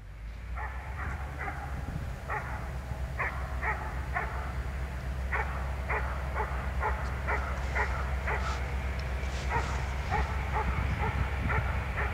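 A dog barking again and again in short, sharp barks, sometimes several in quick succession, over the steady low rumble of a diesel locomotive hauling an approaching freight train.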